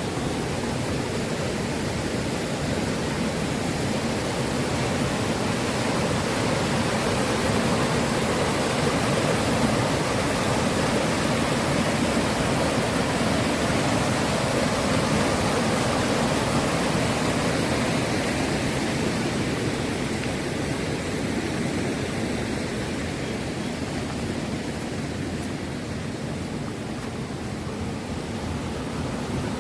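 A mountain stream rushing over rocks in a steady, even wash of water noise, a little louder in the middle.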